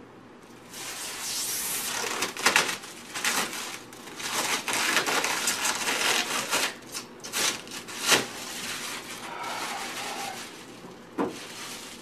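Clear plastic film being pulled and peeled off a portable air conditioner, crinkling and crackling with many sharp rustles; it starts about a second in and dies down near the end, with a single tap shortly before the end.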